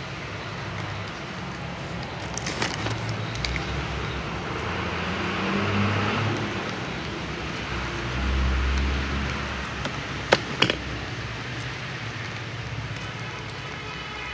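Plastic ketchup sachet crinkling as it is handled close to the microphone, with two quick sharp snips about ten seconds in as scissors cut it open. A low rumble swells and fades around the middle.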